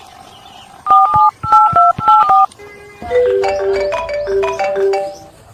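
Phone keypad dialing tones: a quick run of short two-tone beeps as a number is keyed in. A simple melodic ringback tune then plays while the call connects.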